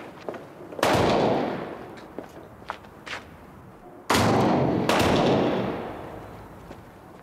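Three revolver shots: one about a second in, then two close together about four and five seconds in. Each shot rings on for about a second in echo.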